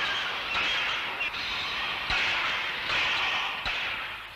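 Steam locomotive running, a steady hiss of steam that swells in chuffs about once a second.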